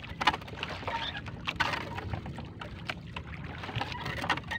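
A wet fishing net being hauled by hand aboard a small wooden outrigger canoe, making irregular splashing, dripping and rustling sounds, with water sloshing at the hull.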